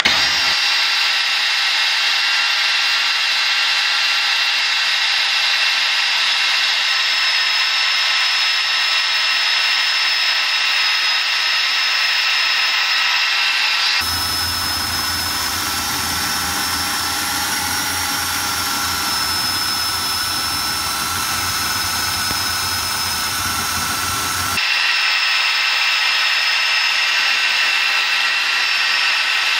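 DeWalt 18V cordless portable bandsaw running steadily as its blade cuts through steel square tubing: a continuous motor whine with several steady tones. About halfway through, the sound turns heavier with more low rumble for some ten seconds, then returns to the brighter whine.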